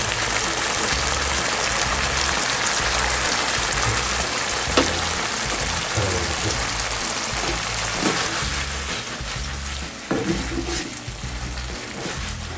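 Food sizzling as it fries in a hot pan, with a few sharp knocks of a utensil stirring it; the sizzle eases a little near the end.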